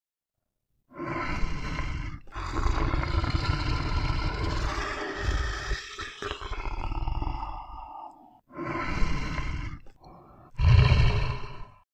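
A string of recorded animal roar sound effects: several separate roars with short gaps between them, one of them long, and the last, near the end, the loudest and deepest.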